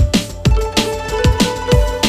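Electronic dance music with a fast, steady kick-drum beat and held synth notes.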